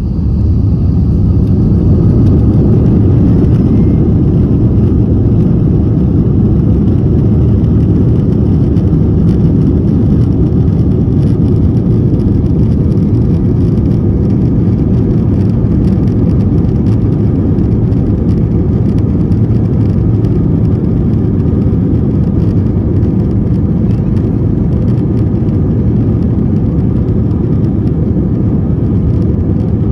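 Airbus A321-231 jet engines spooling up to takeoff thrust as it opens, then a loud, steady rumble of engines and runway through the takeoff roll, heard from inside the cabin.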